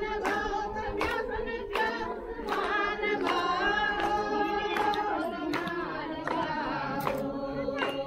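A group of voices, mostly women's, singing a devotional prayer song together, with sharp hand claps at a regular beat.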